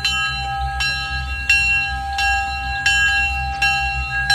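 Bell of the Jupiter replica 4-4-0 steam locomotive ringing steadily, struck about every three-quarters of a second, with a low steady hum underneath.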